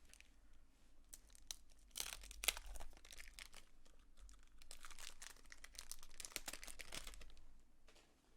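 Wrapper of a baseball card pack crinkling and tearing as it is opened, in two spells of rustling with small clicks: one about two seconds in and a longer one from about four and a half to seven seconds.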